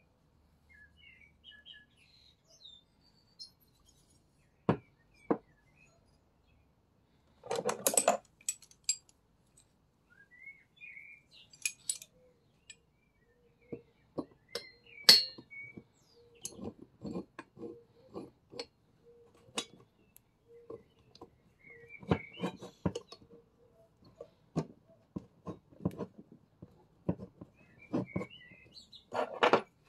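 Irregular sharp clicks, knocks and clinks of metal parts and tools being handled while the flywheel is taken off a Stihl FS 38 string trimmer, with birds chirping faintly now and then.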